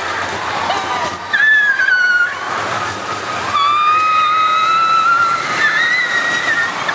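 Long, high screams from people on a fast amusement ride, each held for a second or more, with two overlapping near the end, over a steady rushing noise from the ride.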